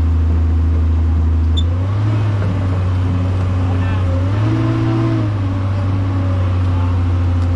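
Large diesel engine running steadily at a low, even speed. The engine note picks up briefly about four and a half seconds in, then settles back.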